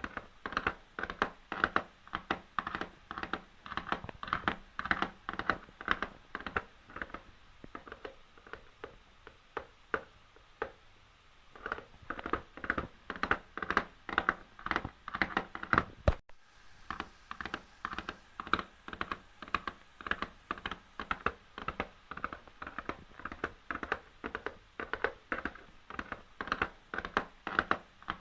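Hoofbeats of a running horse: a quick, unbroken series of sharp hoof strikes that dies down for a few seconds just before the middle, picks up again, and breaks off briefly about halfway through.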